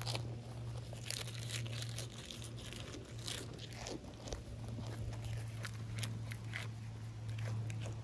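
A goat biting and chewing crisp cabbage leaves: irregular crunches and tearing of the leaves, over a steady low hum.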